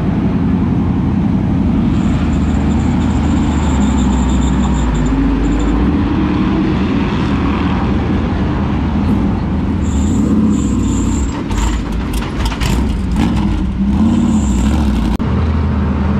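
Pavement modified race car's V8 engine running at a lumpy idle, with a couple of short rises in revs as the car pulls away. A burst of sharp clicks comes through about ten seconds in.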